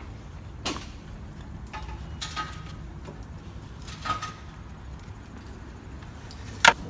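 A handful of sharp clicks and knocks from toy trucks being handled and set down, the loudest one near the end.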